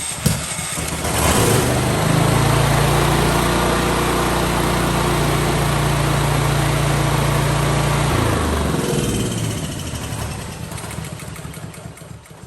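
Honda GX390 single-cylinder generator engine running steadily, now that the oil-level sending unit that was killing its spark has been bypassed. About eight seconds in the engine is shut off and runs down to a stop.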